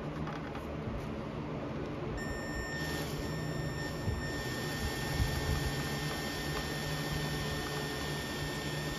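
Cordless drill running slowly with a 7/64 bit, cutting into the soft aluminium plug over the air-fuel mixture screw of a Harley-Davidson CV carburetor. It makes a steady low motor hum, joined by a steady high whine about two seconds in.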